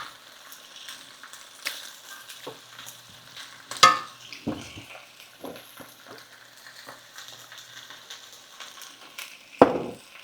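Chicken and beef strips sizzling in a frying pan on low heat, stirred with a utensil that knocks against the pan, most loudly about four seconds in and again near the end.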